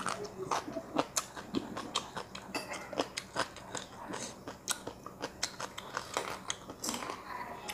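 A person chewing food close to a clip-on microphone, with crisp crunches and irregular small clicks a few times a second.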